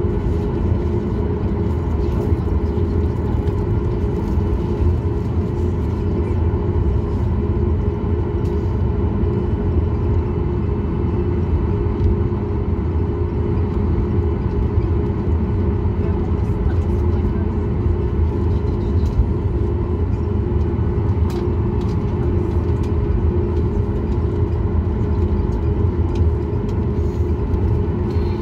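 Cabin noise of a Boeing 737 MAX 8 taxiing, heard from a seat over the wing: the CFM LEAP-1B engines humming steadily at low taxi power under a constant low rumble from the wheels and airframe, with no spool-up.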